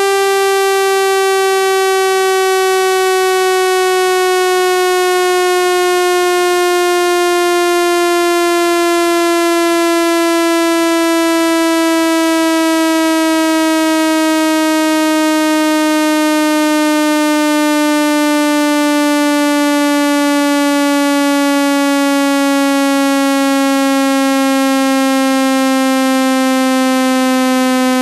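Loud, buzzy synthesized tone, rich in overtones, sliding slowly and steadily down in pitch. It is a speaker-cleaning frequency sweep meant to vibrate water and dust out of a phone speaker.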